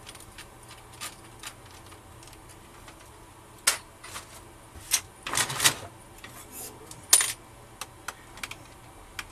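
Small metal clicks and taps of a screwdriver and tiny screws as screws are taken out of a Dell Inspiron N5110 laptop's plastic bottom case and set down on the desk. Scattered light clicks with a few sharper ones, and a short rattle about five and a half seconds in.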